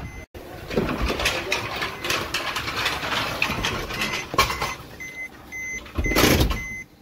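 Rustling and clattering handling noise, then the Maruti Swift's warning chime beeping about twice a second from about five seconds in, with a loud brief rustle near the end.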